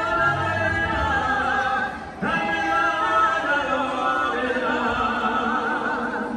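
Music with singing voices holding long notes with wide vibrato, with a short break about two seconds in and fading near the end.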